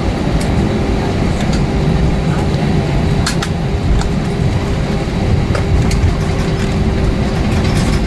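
Cabin noise of an Airbus A320-232 rolling out after landing and turning off the runway: its IAE V2500 engines running with a steady hum over the rumble of the wheels on the pavement. A few short clicks and rattles sound through it.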